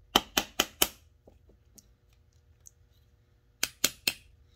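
Small hammer giving light taps to a Tillotson chainsaw carburetor's aluminium body to pop its cover loose: four quick taps in the first second, then three more near the end.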